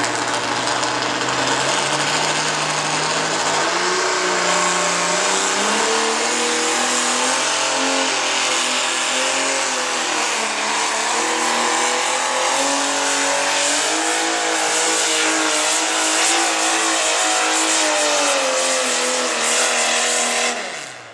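Naturally aspirated pulling tractor's engine at full throttle under load through a pull, its pitch climbing over the first four seconds and then holding, rising and dipping as the load changes. Near the end the engine sound falls away sharply.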